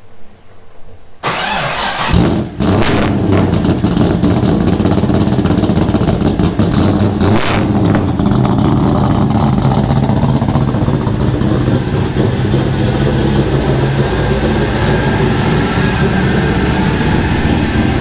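LS V8 engine in a Honda Accord starting through its new custom exhaust. It fires about two seconds in and then runs steadily at a low idle-like speed as the car moves off.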